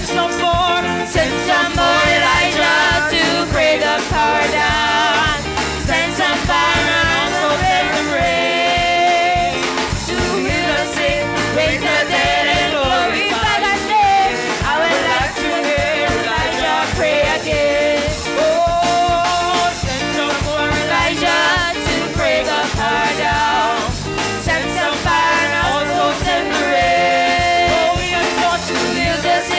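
Live gospel praise singing: a small group of vocalists on microphones, backed by a drum kit.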